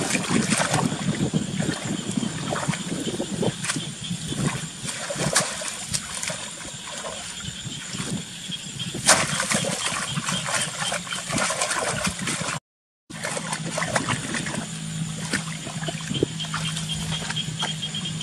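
Water splashing and sloshing with many irregular small knocks, as when a fishing net is worked through shallow water. A brief total dropout comes about two-thirds through, after which a steady low hum and a faint high whine join in.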